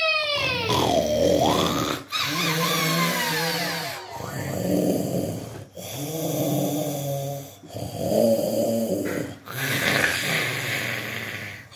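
Horror sound effect of low, drawn-out ghostly moaning, in phrases about two seconds long with short breaks between, and falling wailing glides in the first few seconds.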